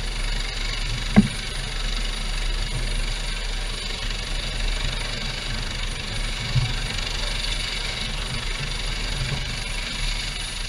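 Small boat's engine running steadily, with one sharp knock about a second in and a lighter thump about six and a half seconds in.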